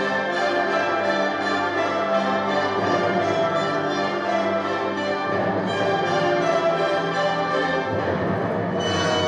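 Orchestral music accompanying a figure skating short program, played over an ice rink's loudspeakers.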